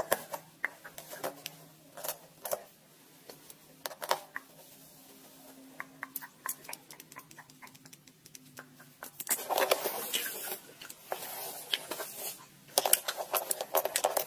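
Close-up clicks and taps, scattered at first, then dense crackly scratching and tapping from about nine seconds in, with a brief pause shortly before the end.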